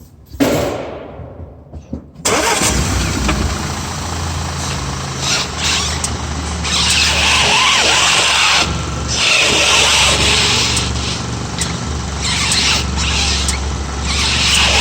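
Audi A4 B8 allroad 2.0 TFSI turbocharged four-cylinder petrol engine starting about two seconds in, then running steadily. A hiss swells and fades over it several times.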